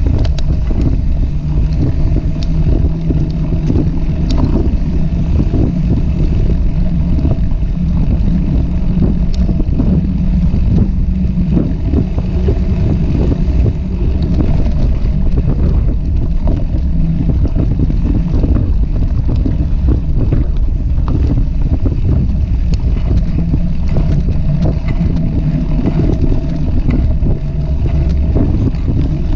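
Wind noise on a bike-mounted camera's microphone over the steady rumble of wide fat-bike tyres rolling on a dirt trail, with scattered small clicks and knocks from bumps.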